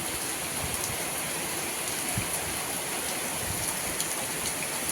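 Steady hiss of rain and wind in pine trees, with scattered faint ticks of drops.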